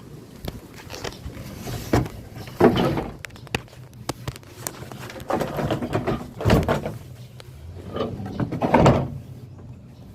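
Wooden 2x10 board being handled against a pickup truck bed: sharp knocks and several rough scrapes a few seconds apart, as the cut board is moved into place to check its fit.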